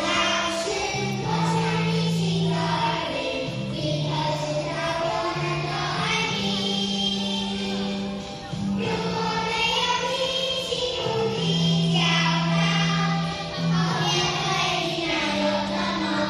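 A group of young children singing a song together with instrumental accompaniment, the accompaniment holding long steady low notes that change every second or two beneath the melody.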